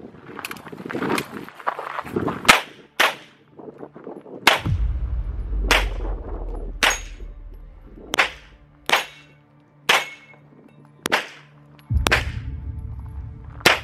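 Pistol shots fired one at a time, about a dozen, roughly one every second, each a sharp crack with a short ringing tail.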